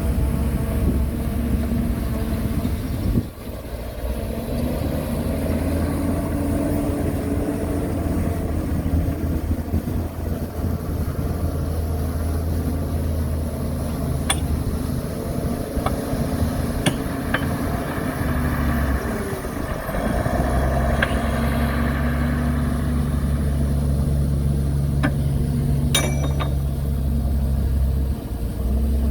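Heavy diesel engines of earthmoving machines (dump trucks and a bulldozer) running steadily, their low drone shifting about two-thirds of the way through, with a few sharp metallic clanks in the second half.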